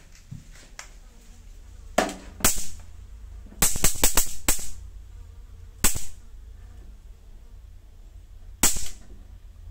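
Electric mosquito racket (Điện Quang) snapping as mosquitoes hit its charged grid: sharp electric cracks, a pair about two seconds in, a quick run of about five in the middle, then single snaps twice more.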